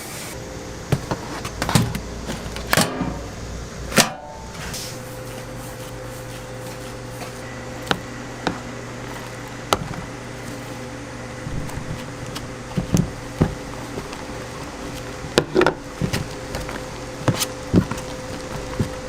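Cooking-stall clatter: utensils knocking and clicking at irregular moments over a steady machine hum.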